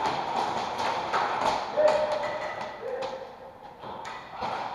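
Irregular footsteps and light knocks on a hard floor, with faint distant voices.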